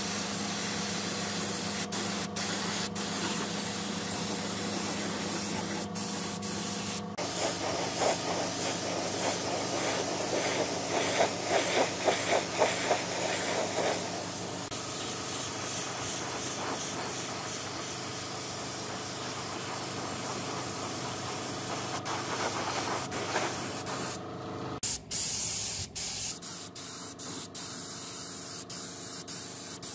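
Compressed-air paint spray gun hissing steadily as it sprays paint. The hiss changes abruptly a few times, about 7, 14 and 25 seconds in.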